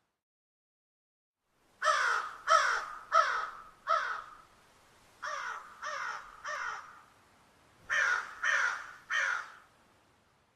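Crows cawing: a run of four harsh caws, a quieter run of three, then three more, each call short and falling in pitch.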